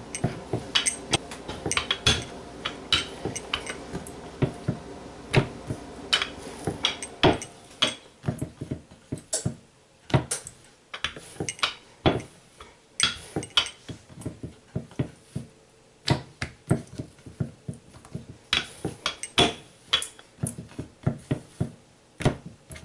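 Wooden rolling pin knocking and clicking against a wooden board while rolling out bhatura dough, irregular sharp knocks a few times a second. A steady low hum underneath stops about seven seconds in.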